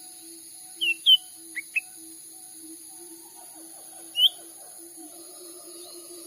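Cucak ranting calling in short, sharp chirps: a quick pair about a second in, two fast upward-sweeping notes just after, and one more chirp about four seconds in. Under them runs a steady high-pitched drone and a low pulsing hum.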